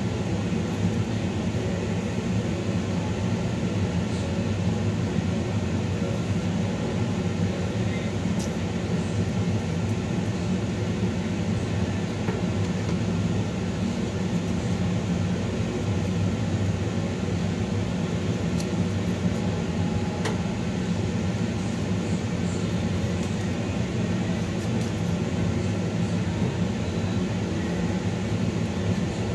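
A steady low mechanical hum that does not change in level, with a few faint clicks over it.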